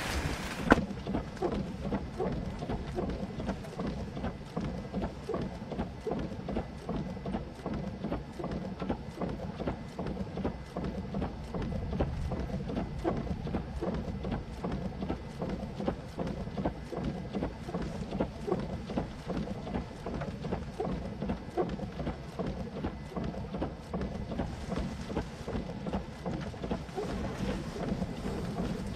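Rain pattering and wind buffeting the microphone in a steady low rumble with many small irregular ticks, and one sharp knock about a second in.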